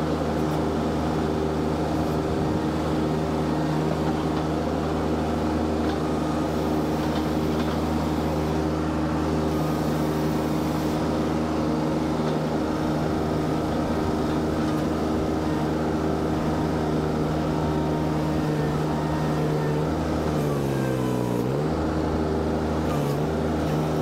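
Mini tracked skid steer's engine running steadily at working speed. Its pitch dips for about a second around twenty seconds in, then comes back up.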